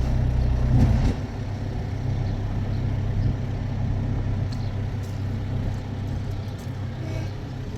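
A motor vehicle's engine running steadily with a low hum, a little louder for the first second.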